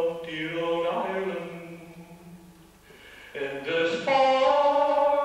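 A man singing solo and unaccompanied, holding long notes. There is a pause for breath about two seconds in, then a long held note near the end.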